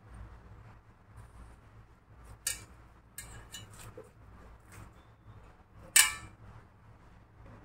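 Bananas being peeled by hand and dropped into a stainless steel mixer-grinder jar: a few light knocks and rustles, then a louder ringing clank about six seconds in as a banana lands against the steel, over a faint low hum.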